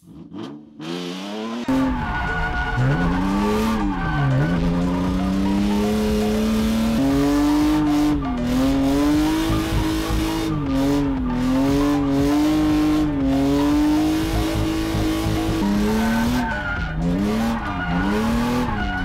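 BMW E36 drift car's engine revving up and down again and again as it slides around a skid pad, with its tyres squealing. It comes in loudly about two seconds in.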